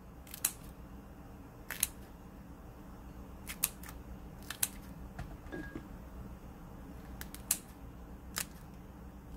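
Kitchen scissors snipping slits into shishito peppers: about eight short, sharp snips, spaced unevenly.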